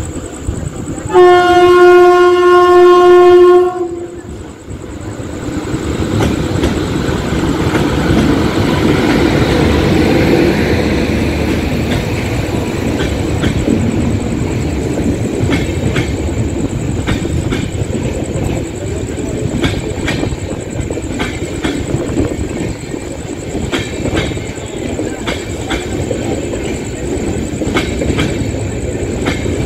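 A train horn sounds one long, steady blast of about two and a half seconds, then an express passenger train runs through at speed: a loud rumble of the passing coaches with wheels clattering over the rail joints.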